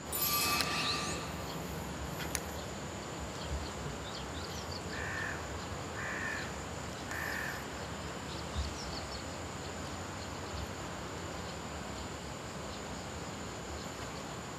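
A crow cawing three times, about a second apart, over a quiet outdoor background. A brief louder noise comes at the very start.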